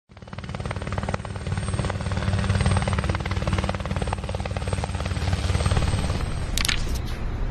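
Helicopter rotor chopping rapidly and steadily, fading in at the start. A short sharp hissing noise cuts through about six and a half seconds in.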